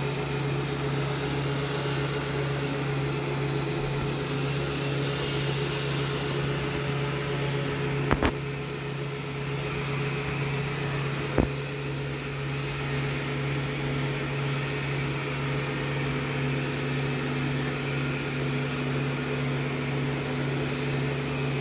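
Rowenta X-plorer Serie 60 robot vacuum running with a steady motor hum, with two short knocks, one about eight seconds in and one about three seconds later.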